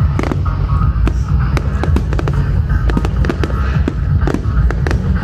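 Fireworks going off in quick succession: sharp cracks and bangs, several a second, over a continuous low rumble.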